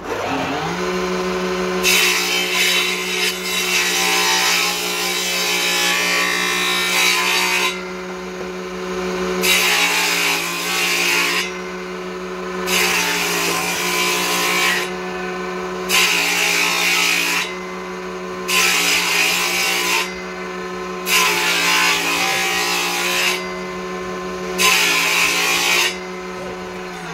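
Bench-mounted woodworking machine starting up and running with a steady hum while small pieces of timber are fed through it to cut grooves. There are about seven cutting passes, each a second or two of harsh wood-cutting noise over the hum.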